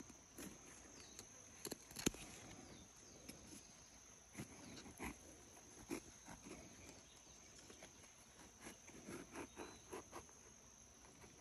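Kitchen knife cutting through the spiny rind of a ripe gac fruit: faint, scattered crunches and clicks as the blade is worked around the fruit, over a steady high-pitched background tone.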